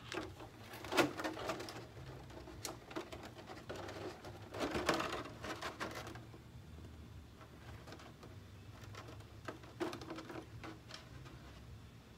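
Hands handling and shifting a painted polycarbonate RC car body on a workbench: scattered light knocks, taps and plastic rustles, busiest about one second in and again around five seconds.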